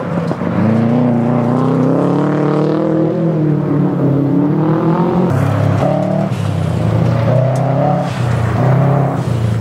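Race car engines revving hard, the pitch climbing and dropping again and again as the cars accelerate, shift and lift through a corner.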